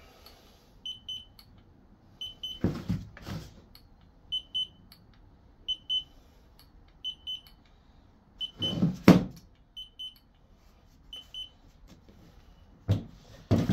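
Handheld infrared thermometer beeping in quick pairs of high beeps, about every second and a half, as it takes temperature readings. Several clunks and knocks from handling the cordless chainsaw's battery pack, the loudest about nine seconds in.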